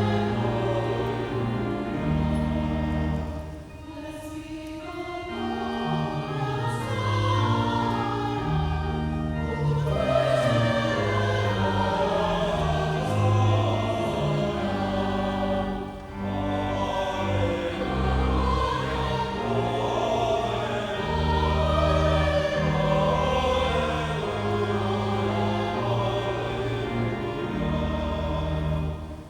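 Church choir singing with accompaniment, held low notes sounding under the voices. The music thins briefly about four seconds in and again near the middle.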